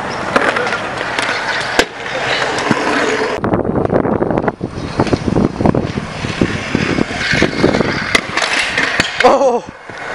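Stunt scooter wheels rolling and rattling over concrete and asphalt, with clacks and knocks from tricks and landings. The sound changes abruptly partway through.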